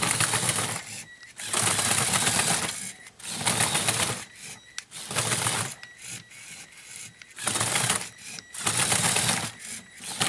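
Motorized Lego Technic Extreme Adventure driving on its tracks: a Power Functions XL motor whirring through the plastic gear train with a rattling clatter. It runs in several short bursts of one to two seconds, stopping and starting.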